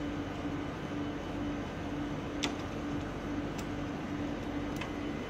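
Steady hum with a low tone that pulses evenly on and off, and three light clicks as the small metal pickup-solenoid bracket of an HP LaserJet printer is handled and lifted out.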